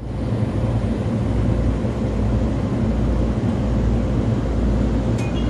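Local train running, a steady low rumble heard from inside the carriage, with a short click and brief high ringing near the end.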